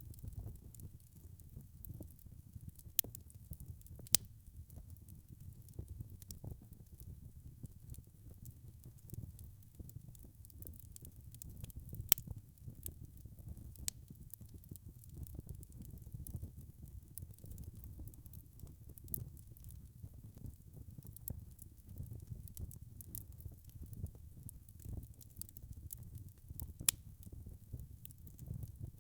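Wood logs burning in a fireplace: a low steady rumble of flame with frequent small crackles and a few sharper pops, the loudest about 3, 4, 12 and 27 seconds in.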